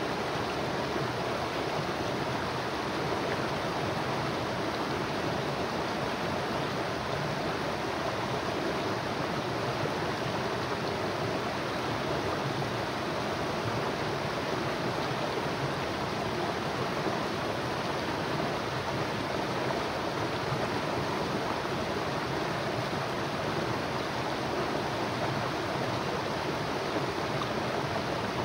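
River water flowing over its bed: a steady rushing noise that does not change.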